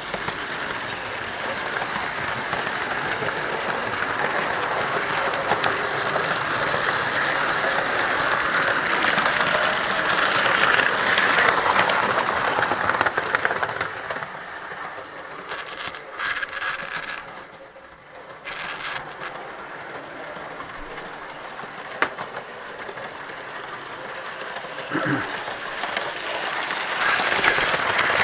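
Model railway train running on the track, heard from a camera wagon riding on it: a steady rattle of small wheels and motor over the rails. It grows louder to about thirteen seconds in, dips sharply for a few seconds, then swells again near the end as another model train passes close alongside.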